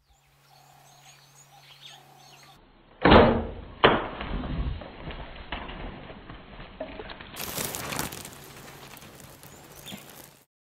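Birds chirping, then a loud thwack of a traditional bow shot with a second sharp crack just under a second later, followed by the scuffle of a nyala's hooves bolting across dusty ground.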